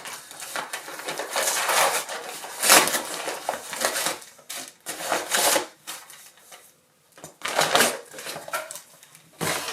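Packaging being unwrapped by hand: paper or plastic wrapping rustling and crinkling in irregular bursts, with short pauses.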